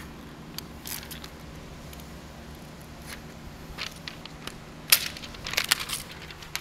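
Suntex window tint film crinkling and snapping as it is handled on wet door glass and its back edge is trimmed with a small knife. The sound comes as scattered short, sharp crinkles, more often in the second half, with the loudest snap about five seconds in.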